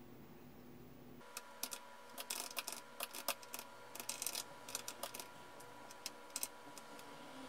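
Typing on a computer keyboard: irregular runs of key clicks start about a second in and thin out toward the end, over a faint steady hum.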